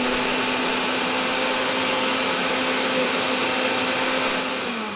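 Countertop blender running at one steady speed, pureeing a sauce of chopped apple, garlic, scallions and ginger in liquid. Near the end it is switched off and the motor winds down, its pitch falling.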